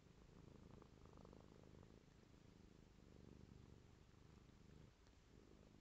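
Domestic cat purring, faint and steady, with a slight dip about five seconds in.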